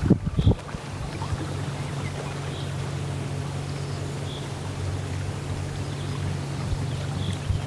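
Small boat's motor running steadily with a low, even hum that starts about half a second in, after a few low buffets of wind on the microphone.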